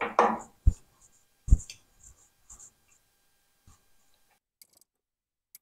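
Handling noises at a milling vise: a few sharp knocks and a scratchy rustle, then small scattered clicks, before the sound cuts to silence about four and a half seconds in.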